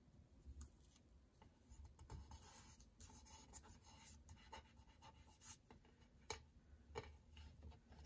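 Faint rustling and scratching of fingertips pressing and rubbing a small sticker down onto a paper tag, with a few small ticks near the end.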